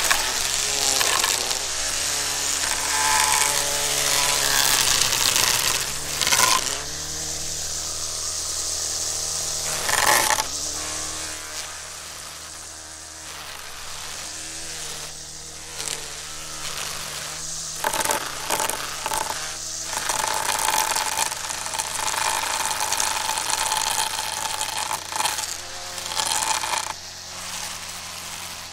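Gas-powered weedwacker running, its engine pitch rising and falling as the spinning line strikes wood with a crunchy, crackling chatter. The sharpest strikes come about six and ten seconds in, with clusters between about eighteen and twenty seconds and again around twenty-five to twenty-seven seconds.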